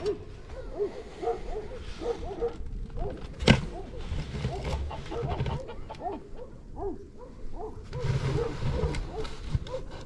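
Chickens clucking in short, repeated calls, with a single sharp knock about three and a half seconds in.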